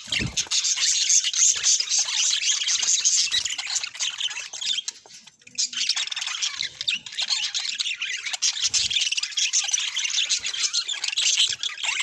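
Budgerigars chirping and chattering continuously in fast warbling notes and squawks, with a brief lull about five seconds in.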